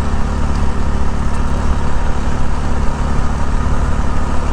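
The TVS XL100 moped's single-cylinder 100 cc engine pulling steadily up a steep climb at about 35 km/h, a low even hum that holds one pitch, under a steady rush of road noise.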